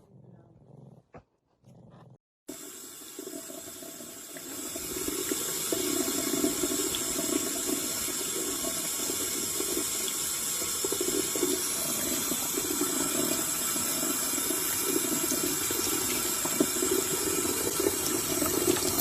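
Steady rush of running water, starting suddenly about two and a half seconds in and growing louder about two seconds later.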